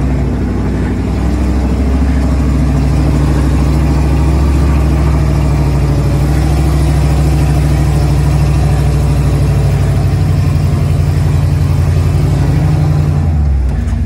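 Off-road 4x4's engine pulling steadily under load up a steep dirt hill, heard from inside the cab. Near the end the engine note drops as the throttle eases at the crest.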